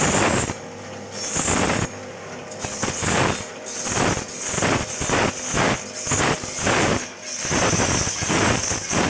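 Satay skewer sharpening machine working bamboo skewers to a point, heard as a run of repeated noisy grinding bursts with clicks, quieter for the first couple of seconds.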